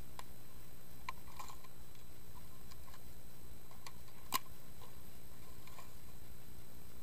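Scattered faint clicks and ticks over a steady background hiss, with one sharper click about four seconds in.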